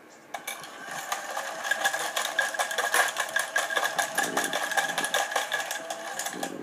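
Choken Bako dog coin bank's small electric motor and plastic gears whirring, with fast steady clicking, as the toy dog dips its head into the bowl and gobbles a coin. It starts suddenly just after the start and stops near the end.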